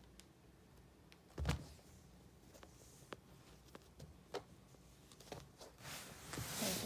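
Light scattered taps and clicks, with one louder low thump about a second and a half in and rustling near the end.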